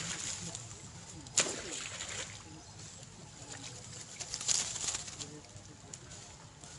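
Macaques splashing in shallow floodwater: a sharp splash about a second and a half in, and another burst of splashing about four and a half seconds in.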